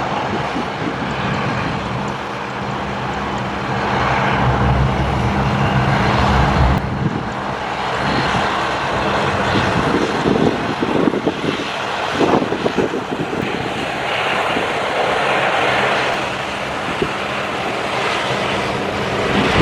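Jet airliner engines on landing, with a steady low hum that gives way about seven seconds in to a rougher, gusty rush. Strong wind buffets the microphone.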